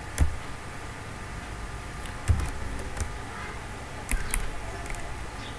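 A handful of scattered computer keyboard keystrokes, sharp separate clicks, over a steady low background hum.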